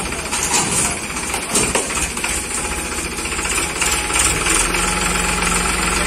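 Powertrac tractor's diesel engine running steadily with a rattly knock, with a couple of sharp knocks in the first two seconds. About four seconds in, the engine note grows a little louder and deeper.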